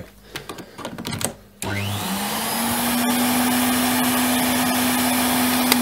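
Hoover Sensotronic S3128 vacuum cleaner switched on about a second and a half in, after a few light clicks: the motor spins up with a rising whine and settles into a steady run. A sharp click comes near the end.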